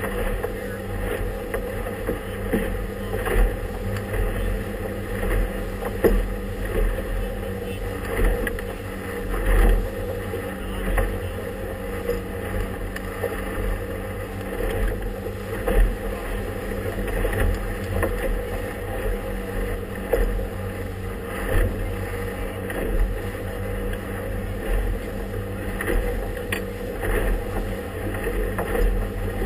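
Motorboat engine running steadily under way through choppy water, with wind buffeting the microphone and several louder thumps.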